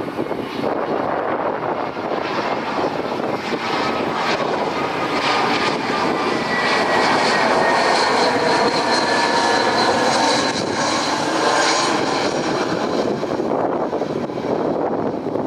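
Airbus A319 jet airliner passing by, its engine noise swelling to a peak about midway and then easing off. A faint jet whine slowly falls in pitch as it goes past.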